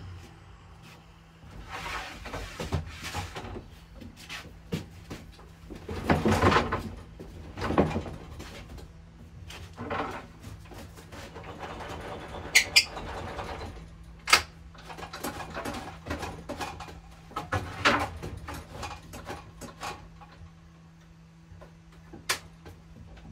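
Wooden boards being handled on a jobsite table saw: irregular knocks, thuds and scrapes of wood on wood and on the saw's table, with a few sharp clicks. A low, steady hum runs underneath.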